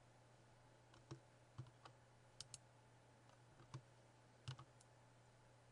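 Faint computer mouse clicks, about seven scattered over a few seconds, over a low steady hum.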